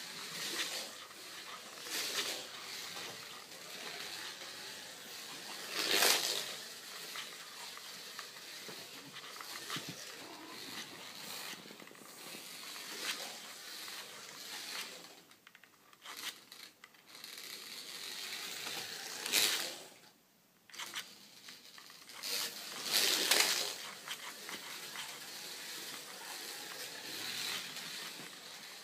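Scalextric slot car running around a plastic track: its small electric motor and gears whirring, swelling louder a few times as the car passes close.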